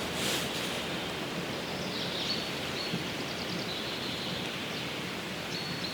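Steady rushing forest background noise, with a small bird's thin, high song from about two seconds in.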